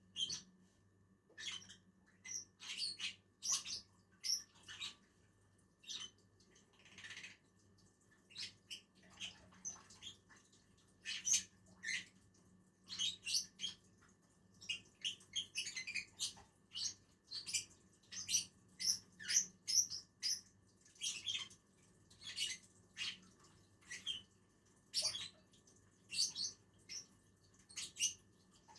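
Lovebirds chirping: many short, high-pitched calls, irregularly spaced, coming thick and fast in places.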